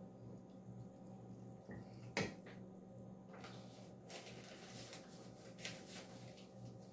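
Faint kitchen handling noises: a single knock about two seconds in, then a run of soft scraping rustles, over a steady low hum.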